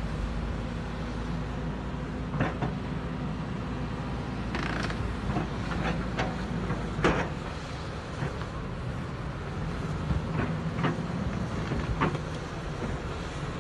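Diesel engines of a Hidromek 300 LC crawler excavator and a backhoe loader running steadily under load, with scattered sharp clanks and knocks as the buckets strike soil and rock; the loudest knock comes about seven seconds in.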